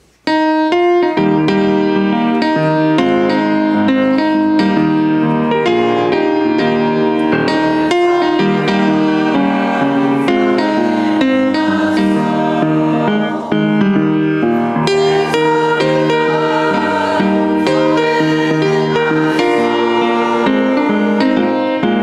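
Piano playing a hymn tune, starting abruptly about a third of a second in and continuing steadily.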